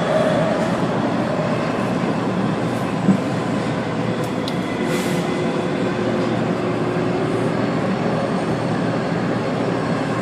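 WMATA CAF 5000-series Metrorail car running between stations, heard from inside the car: a steady rumble of wheels on the track, with a single sharp knock about three seconds in.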